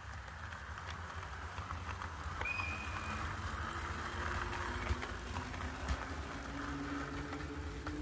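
AC electric train running, its low rumble growing louder, with occasional wheel clacks. There is a short high squeal about two and a half seconds in, and from about five seconds in a humming tone slowly rises in pitch.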